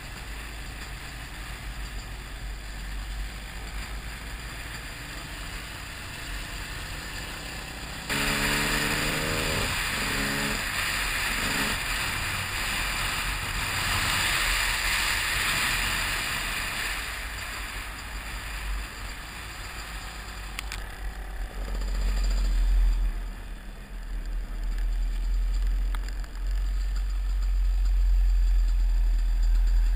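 Enduro motorcycle running on the road with wind rushing over a helmet-mounted camera. About eight seconds in it gets louder as the bike accelerates, the engine rising in pitch several times through the gears; strong low wind buffeting dominates near the end.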